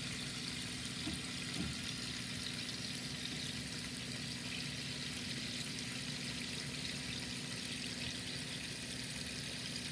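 Tap water running steadily into a plastic bowl of leftover marinade juices.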